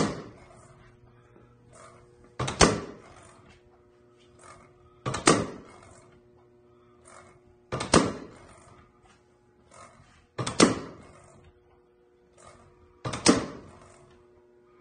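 Pneumatic drive of a pendulum generator: a solenoid air valve and small air cylinder firing with a sharp double knock and a short hiss of air. This comes evenly about every two and a half seconds, six times, each pulse pushing the pendulum to keep it swinging, with a fainter knock between pulses. A steady low hum runs underneath.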